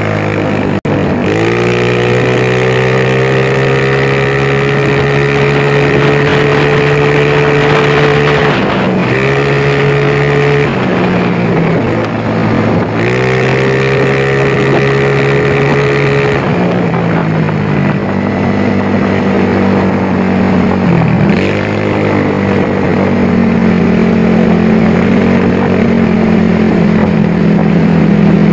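Yamaha Mio scooter's single-cylinder four-stroke engine, freshly rebuilt with a 58.5 mm bore-up cylinder, running while the scooter is ridden. Its note rises and falls several times as the throttle is opened and eased.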